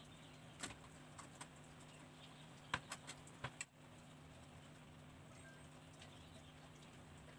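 A few faint clicks and taps from aluminium extrusion frame parts of a CNC 3018 kit being handled and fitted by hand, about a second in and in a small cluster around three seconds in, over a low steady hum.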